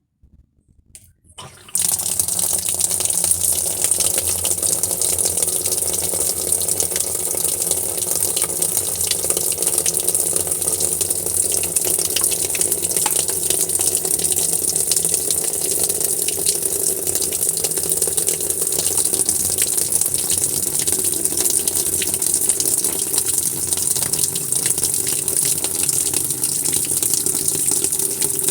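Steady rush of running water, beginning abruptly about two seconds in and continuing unchanged, with a faint low hum beneath it.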